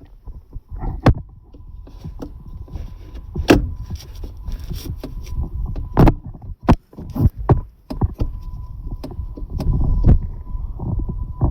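An old car that won't start: a pause in the cranking filled with clicks and knocks and a faint steady high tone, then the starter cranking the engine again from about eight seconds in, without it catching.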